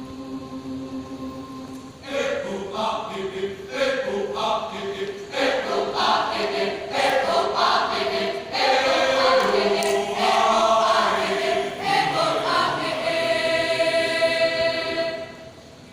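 Choir singing: a quiet held note, then the full choir comes in about two seconds in and sings a phrase that ends on a long held chord, which cuts off just before the end.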